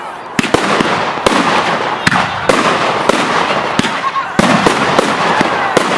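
Professional firework display: sharp bangs every half second or so over a continuous crackling hiss.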